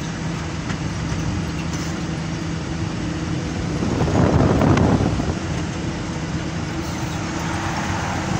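Cab interior of a new BS6 Ashok Leyland Ecomet truck under way: the diesel engine's steady drone mixed with road noise, with a louder rush of noise swelling and fading about halfway through.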